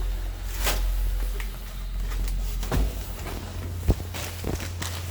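A few short, sharp knocks and clicks, the loudest about four seconds in, over a steady low hum.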